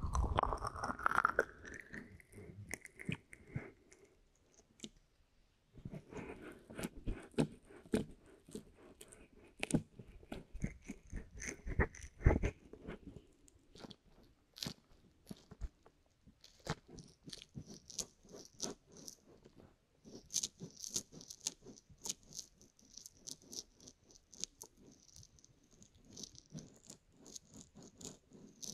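Fingers rubbing, pressing and tapping on the silicone ear of a binaural ear-shaped microphone, giving close, irregular crackly and crunchy rustles. In the first part a palm cups and presses over the ear, adding muffled low thuds; after a short lull, the fingertips rub inside the ear with finer, higher crackles.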